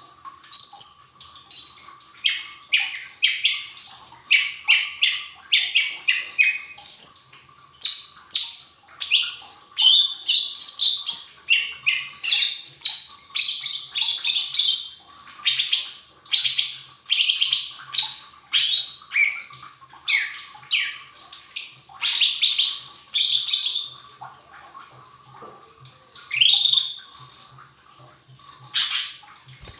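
Cucak ijo mini (lesser green leafbird) singing: a fast, unbroken string of short, high, sweeping whistled notes and chirps, used as a lure song to set caged leafbirds singing.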